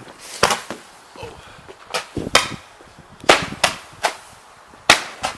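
Fireworks going off: a string of about eight sharp bangs at uneven intervals.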